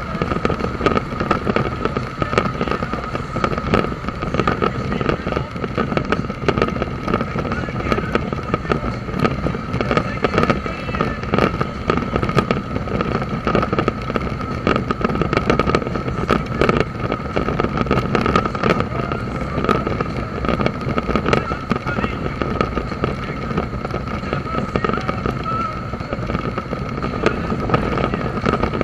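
Suzuki V-Strom motorcycle under way: the engine runs steadily under heavy wind rush, with a constant whine and many sharp little ticks throughout.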